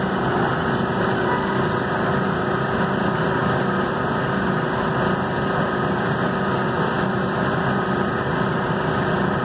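Laser engraving machine running as it raster-etches a picture into a granite tile: a steady, even mechanical drone.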